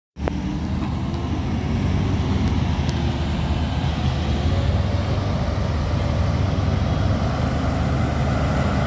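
Diesel engine of heavy farm machinery running steadily, a constant low drone.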